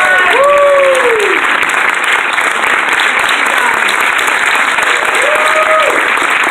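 Audience applauding steadily, with voices calling out over the clapping shortly after the start and again about five seconds in.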